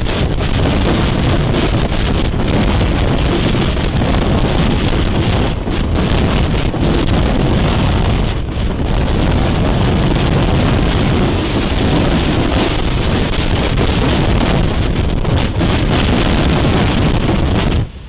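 Strong wind buffeting an outdoor webcam's microphone: a loud, steady rushing noise, heaviest in the low end, with a couple of brief lulls partway through.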